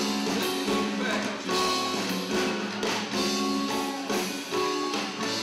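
A live band playing a song on electric bass and guitars.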